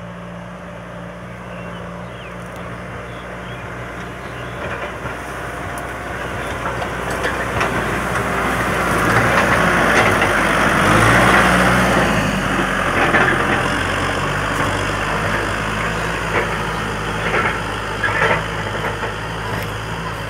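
Kubota M6040SU tractor's diesel engine running steadily under load while working the soil. It grows louder toward the middle as the tractor comes close, then eases off. A few sharp knocks come near the end.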